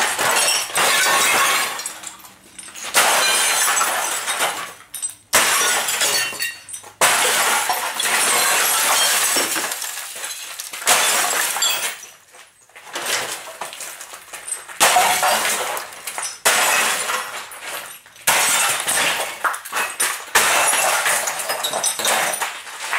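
Glass of a Sony Trinitron CRT television being smashed with a hammer, blow after blow, each hit followed by a long high crackle of shattering and falling glass.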